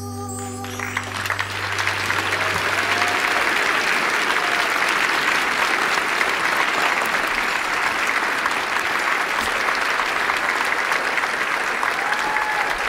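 Audience applauding steadily as the big band's last held chord dies away in the first second or two, with a few short calls from the crowd over the clapping.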